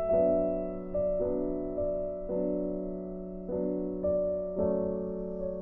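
Background piano music: slow, gentle notes struck about once a second over held chords.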